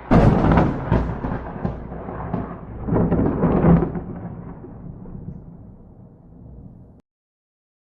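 A peal of thunder: a sudden loud crack and rumble, a second louder peal about three seconds in, then a long fading rumble that cuts off suddenly about seven seconds in.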